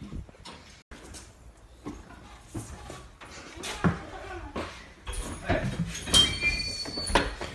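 Scattered knocks and clatter from moving about an old school bus, then thin metallic squeaks over the last couple of seconds as a hand works the bus's emergency door latch.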